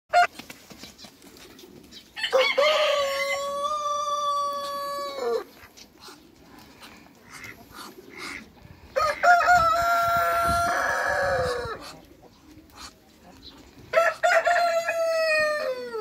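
Roosters crowing: three long crows a few seconds apart, each held steady and then falling in pitch at the end.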